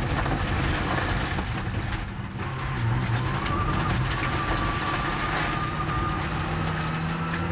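Rally car heard from inside the cockpit, its engine running hard on a gravel stage over dense road and gravel noise. About two seconds in the engine note dips as the driver lifts and shifts down from fourth to third, then a thin high whine rides over the engine.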